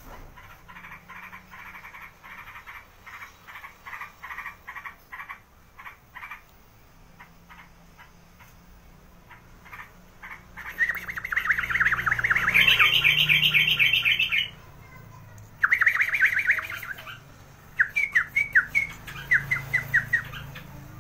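A crucukan bird (yellow-vented bulbul) calling. It starts with soft chirps repeated about twice a second, then breaks into loud, fast chattering bursts from about halfway through, and ends with a quick string of separate chirps.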